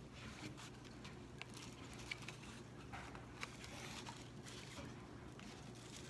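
Faint rustling and light clicks of paper plates and a plastic protractor being handled and shifted, over a low steady hum.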